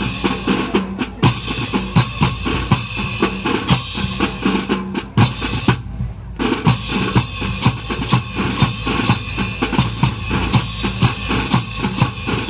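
Drum-heavy music with a driving beat of sharp snare and bass-drum strikes; the upper part cuts out briefly about six seconds in.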